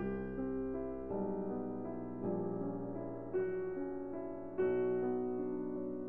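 Soft background instrumental music, a new note or chord struck about every second and left to ring.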